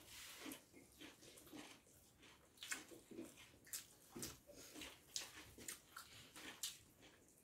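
Faint eating sounds: chewing and fingers mixing rice and curry on metal plates, an irregular scatter of small soft clicks and smacks.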